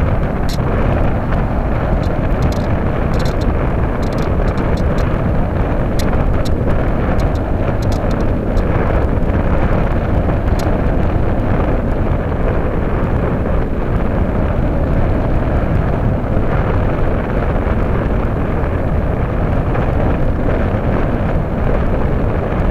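Steady rush of airflow over a keychain camera riding on a Radian powered glider in flight, loud and even, with a few light ticks in the first half.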